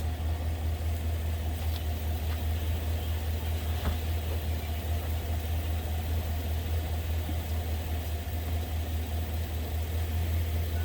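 An engine idling steadily: an even, low hum with no cranking rhythm.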